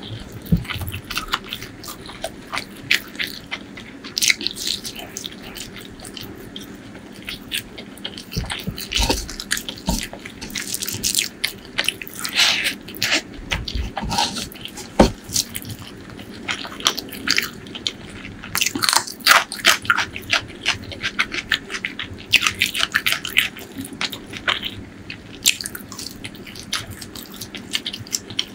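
Close-miked eating of chicken liver and gizzard curry with rice: wet chewing, lip smacks and the odd crunchy bite in an irregular stream.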